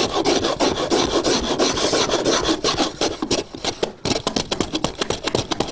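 Stanley 9 1/4 block plane taking quick, repeated strokes along the edge of a board, the iron shaving the wood in a rapid rasping rhythm as the edge is trimmed down to a marked line.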